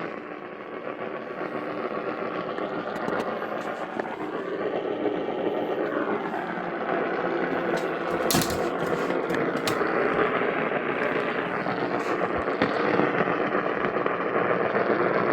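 AM radio receiver tuned to a weak distant station, giving a steady hiss of static with a few sharp crackles, the loudest about eight seconds in.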